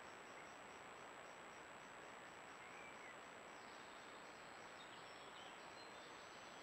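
Near silence: steady hiss of a camera trap's microphone under a constant thin high whine, with faint high chirps repeating about three times a second.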